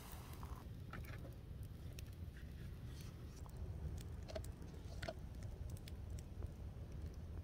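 Hot water pouring into a French press stops about half a second in; then a few faint, scattered clicks and taps as the lid and plunger are set on the press, over a low steady rumble.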